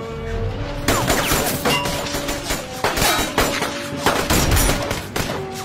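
Film gunfight sound effects: several bursts of rapid gunfire from rifles and handguns, separated by short gaps, with scattered single shots and impacts between them.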